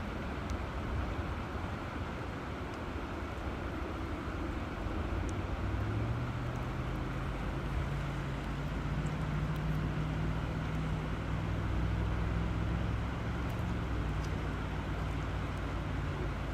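River water flowing, a steady rushing noise. A low steady hum comes in about five seconds in and fades again near the end.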